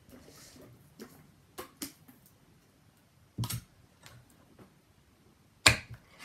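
Small clicks and two sharp metallic knocks, the louder one near the end, as a can of coconut milk is handled and its lid opened.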